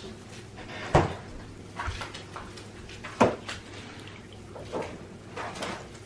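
Water splashing and dripping back into a bowl as handfuls of shredded raw potatoes are squeezed out, broken by a few sharp knocks, the loudest about a second in and just after three seconds.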